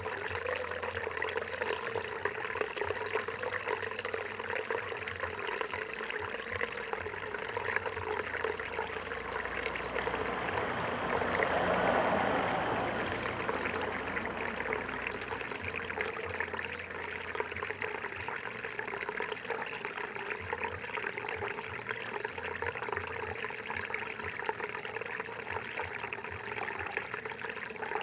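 Gurgling, trickling water running steadily, swelling louder for a few seconds about ten seconds in before settling back.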